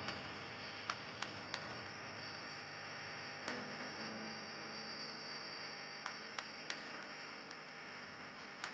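Faint outdoor ambience: a steady high hiss with a few scattered light clicks.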